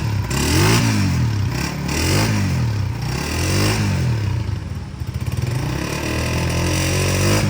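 Honda CG125's single-cylinder four-stroke engine revved in three short throttle blips, each pitch rising and falling back, then running at a steady idle.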